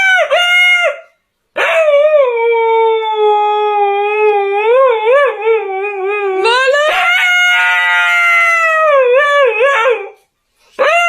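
A dog howling: a short howl, then long wavering howls lasting several seconds each, and another beginning near the end.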